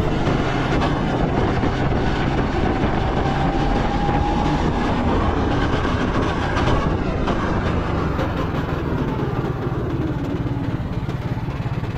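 Sodi go-kart driving at speed, heard from the driver's seat: a steady, loud rattling drone of the motor and chassis.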